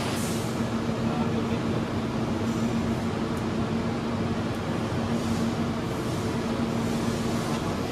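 Steady machine hum: an even rushing noise, like fans running, under a constant low drone.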